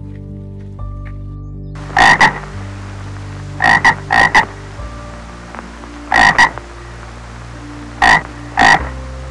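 A frog croaking: about ten short, loud calls, mostly in quick pairs, starting about two seconds in over a steady hiss.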